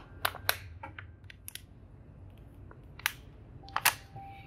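Irregular sharp clicks and taps, about seven, from a plastic oil bottle and a piston with its rings being handled by gloved hands.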